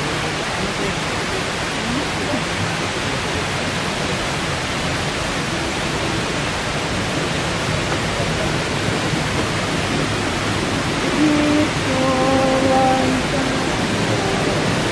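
Waterfall's steady rush of falling water, an even hiss that doesn't let up. A brief pitched sound rises over it about three-quarters of the way through.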